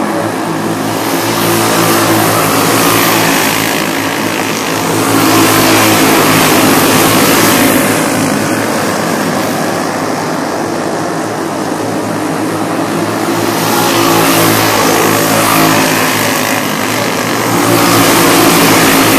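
A pack of racing karts' engines running at speed on a dirt oval, getting louder as the karts pass close by and fading as they run down the track, several times over.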